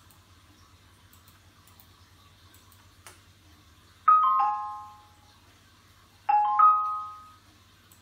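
Windows test sound played through the TV's speakers over HDMI: a three-note chime sounding twice, falling in pitch the first time and rising the second, a sign that the HDMI audio now works. A single click comes just before the first chime.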